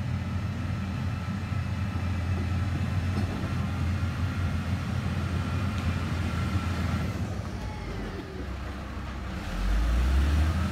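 Motor grader's diesel engine running as the machine moves along a dirt road: a steady low rumble with a faint whine, growing louder near the end.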